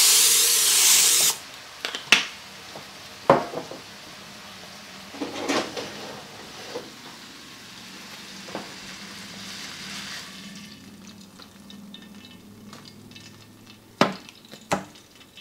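Aerosol cooking spray hissing into a ceramic slow cooker for about a second. Then a hot skillet holding a seared chuck roast sizzles faintly, with scattered knocks of fork and pan, and two sharper knocks near the end as the roast is set into the crock.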